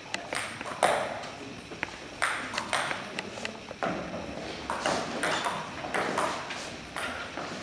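Table tennis ball clicking sharply off the bats and the table in a rally, in an irregular rhythm, with the hits echoing in a large hall.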